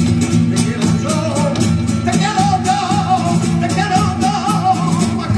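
Live flamenco: nylon-string guitar with palmas hand-clapping, joined from about a second in by a singer's long ornamented cante line with a wavering pitch.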